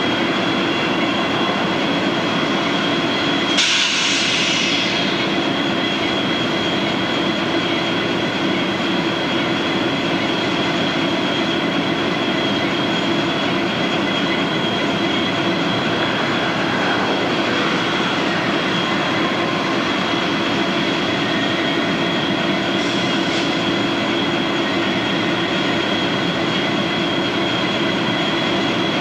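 Steady rail-yard train noise: a constant drone and hum from the standing GG1 electric locomotives and the slowly passing freight train. A short hiss comes a few seconds in, and a fainter one later.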